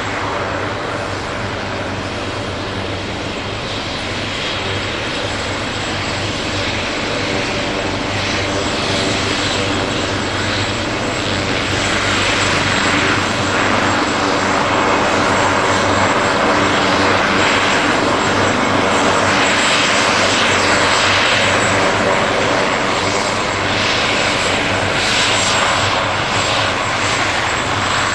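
Leonardo AW139 helicopter's twin turboshaft engines and rotor running: a steady low hum with a thin high whine. It grows louder and rougher from about twelve seconds in.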